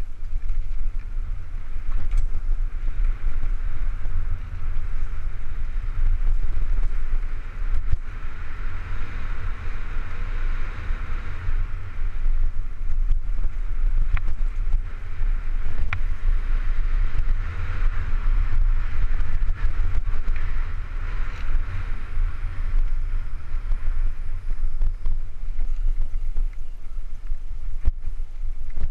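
Cannondale Super V900 mountain bike speeding downhill on a dirt trail: a steady wind rumble on the microphone, the hiss and crunch of tyres on dirt that swells and fades, and scattered clicks and rattles from the bike.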